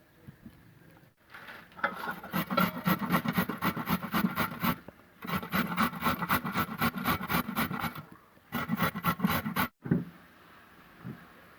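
Carrot being grated by hand: quick, even rasping strokes, several a second, in three runs with short pauses between.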